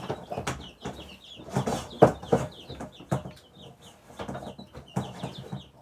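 Baby chicks and ducklings peeping continually, many short falling cheeps, with repeated knocks and rustles of something being handled close by, the loudest about two seconds in.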